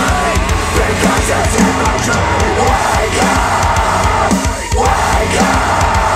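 Death metal with heavy guitars, drums and harsh vocals, played back over hi-fi bookshelf speakers driven by an Arcam SA10 integrated amplifier. Partway through, playback switches from a pair of Polk Audio Reserve R200s to a pair of KEF Q150s.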